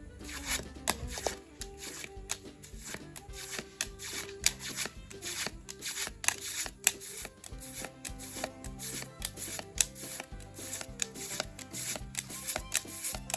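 Pokémon trading cards being slid and flicked past one another by hand, a quick run of crisp card clicks and rustles, over background music.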